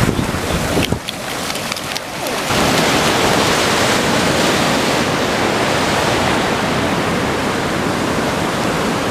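Ocean surf rushing on the beach, a steady hiss that dips briefly, then swells louder about two and a half seconds in and holds.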